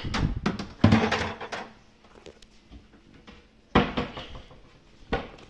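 Hard objects being handled: a cluster of clunks and knocks in the first second and a half, then two single knocks, one near four seconds in and one near five.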